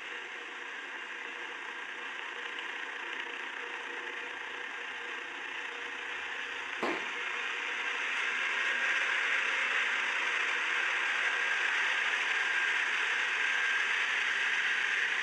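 Single-drum road roller working over loose gravel: a steady mechanical rattle of the machine and crushing stone, growing a little louder partway through, with one sharp click about seven seconds in.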